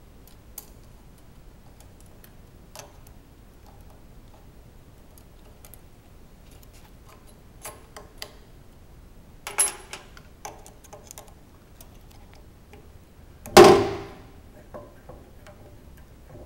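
Light metallic clicks and ticks of an Allen wrench working the bolts that hold a hydraulic power-pack valve to its subplate, with a sharper clink past the middle and one loud metal clunk a few seconds before the end.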